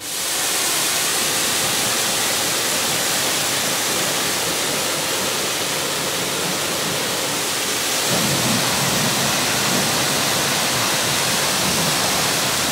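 High-pressure washer jet spraying water onto a car body to rinse off insect-remover chemicals: a steady hiss that starts suddenly and grows fuller and deeper about eight seconds in.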